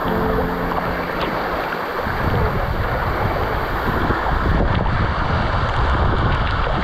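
Waterfall pouring into a rock pool, heard close up from water level: a loud, steady rush of falling and splashing water. The sound dulls slightly about halfway through as spray hits the camera.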